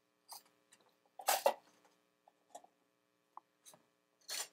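Serving utensils knocking and clinking against small stainless-steel bowls while a dessert is dished up: a few short, scattered clicks, the loudest about a second and a half in and another near the end, over a faint steady hum.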